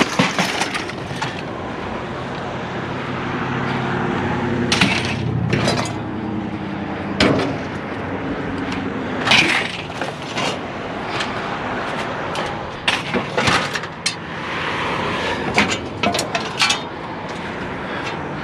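Scattered knocks and clatters at irregular intervals over a steady rushing noise, with a low hum for a few seconds early on.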